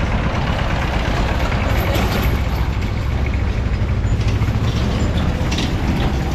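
Busy city street traffic: a steady rumble of engines, with a few short clatters.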